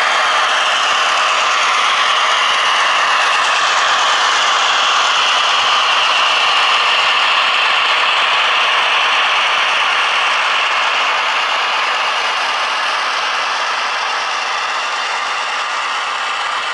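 H0-scale model train running on its track: a steady whirring and clattering from the motor, gears and wheels that swells slightly through the middle and fades a little toward the end.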